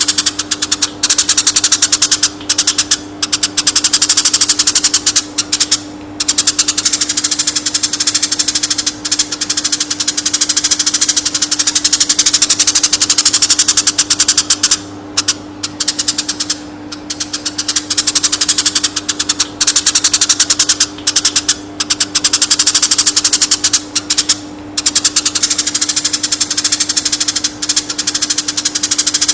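Eurasian tree sparrows chirping in a fast, dense, nonstop chatter, broken only by a few brief pauses, over a steady low hum.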